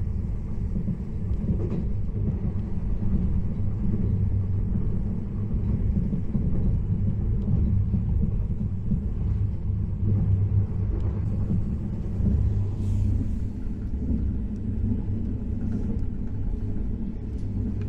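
KTX high-speed train running at speed, heard inside the carriage: a steady low rumble with a faint hiss above it.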